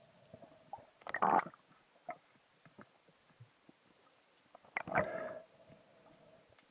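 Muffled underwater handling noise from spearfishing gear as a speared fish is worked on the spear shaft: two short rushing bursts, about a second in and about five seconds in, with faint clicks and knocks between.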